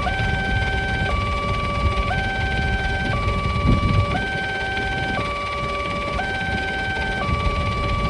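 Railway level crossing warning alarm sounding a two-tone electronic signal, switching between a higher and a lower tone about once a second, over a low background rumble. The alarm warns that a train is approaching and the crossing barrier is closing.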